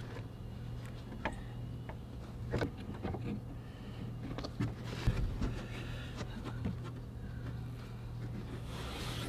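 Scattered light knocks and clicks as a carpeted wall panel with a rotary battery switch is handled and fitted into place, over a steady low hum.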